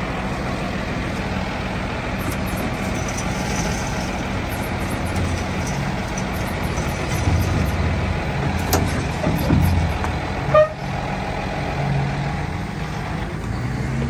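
Vehicle engine running steadily, with a few sharp clicks and a short, loud sound about ten and a half seconds in.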